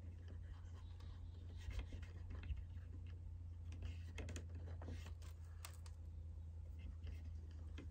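Faint, irregular rubbing and scratching of a cotton swab pressing a vinyl film cover down onto a plastic fog light lens and working its edges, over a steady low hum.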